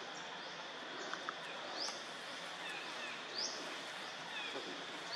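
Outdoor forest ambience: a steady hiss with a high, rising call repeating about once a second, twice louder a couple of seconds in, and a few short falling chirps.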